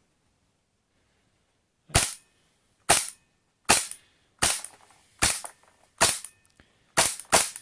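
Tokyo Marui gas-blowback airsoft Desert Eagle with the long barrel firing eight shots, the first about two seconds in and the rest roughly one every 0.8 s, the last two close together. The remaining pellets in the magazine are being emptied.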